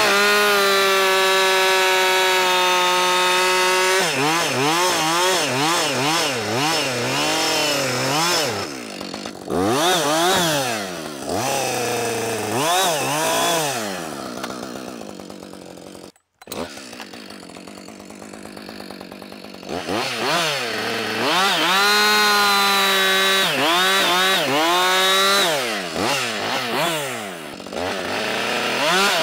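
Two-stroke chainsaw running at full throttle, its engine pitch dipping and recovering over and over as the chain bites into wood. Past the middle it drops to a quieter running stretch with a brief cut-out, then revs up and cuts again.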